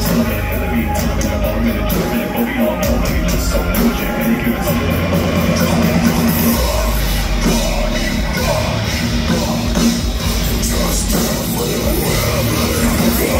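Heavy metal band playing live through a festival PA, heard from within the crowd: a dense, loud mix of distorted guitars, bass and drums with steady cymbal hits under a singer's voice.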